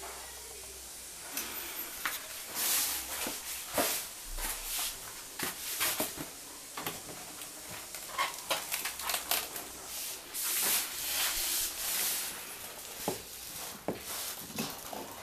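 Irregular rustling, rubbing and clicking of hands handling a new LED TV and its plastic packaging, with short crinkly bursts and sharp taps throughout.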